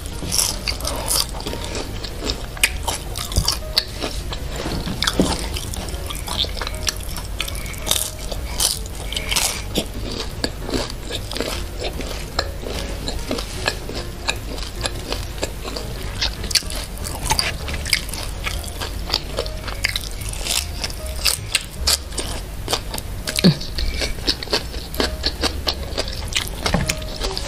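Close-miked eating: chewing and biting into fried duck, rice and lettuce, with many crisp crunches and wet mouth clicks, over a steady low hum.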